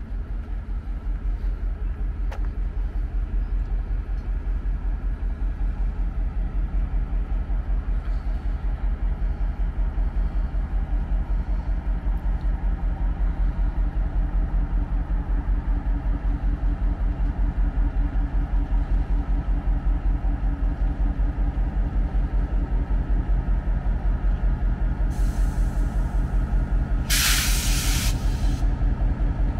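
Diesel locomotive engines idling with a steady, pulsing low rumble. Near the end comes a sharp hiss of released air from the locomotive's air brakes, lasting about a second and a half.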